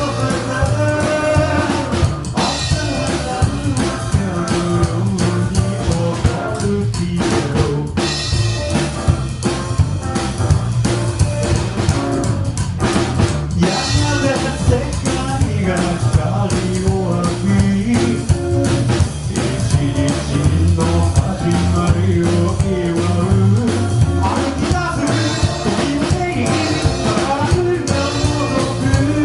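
A rockabilly band playing live: drum kit, electric guitar and bass with a singing voice over a steady beat.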